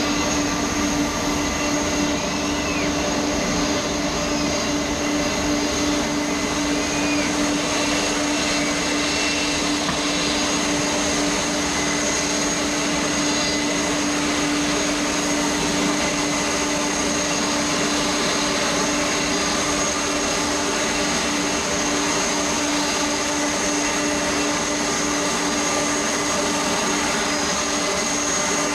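Jet airliner engines running steadily, a loud even rush with a constant whine on top.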